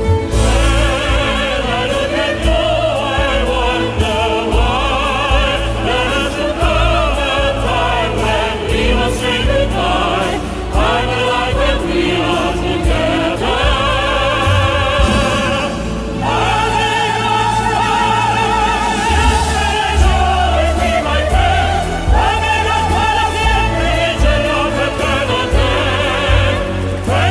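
Music with sustained operatic singing and a choir, over a heavy bass line.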